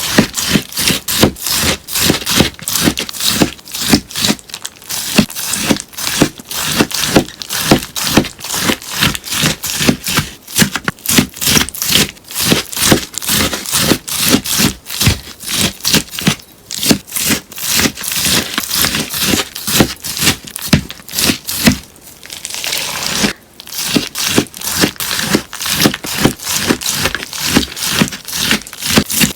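A sponge being cut over and over, a steady run of crisp cuts at about three a second, with a short pause a little after twenty seconds in.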